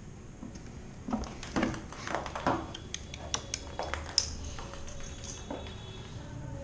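A cat playing around a cardboard cat house on a stone floor makes scattered light taps and clicks. About four seconds in there is one sharper click with a short high ring.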